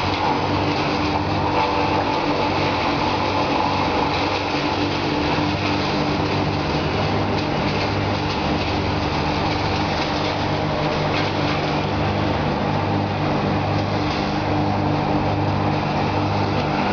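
An engine running steadily, with a low throb that pulses about once or twice a second.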